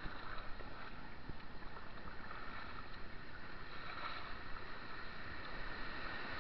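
Rushing white water from a weir, growing louder toward the end as the canoe closes on it, with paddle strokes splashing and a few dull knocks in the first second or so.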